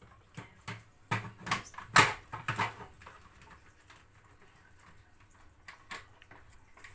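Hard plastic clicks and knocks of a Kenwood blender jug being fitted and twisted onto its base, with a cluster of sharp knocks in the first few seconds and a couple more near the end. The jug does not lock on easily, and the motor does not run.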